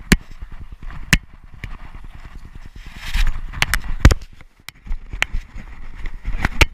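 Thumping and rattling of a camera strapped to a running Doberman: a fast, regular patter of faint knocks with each stride, broken by several loud, sharp knocks as the mount jolts.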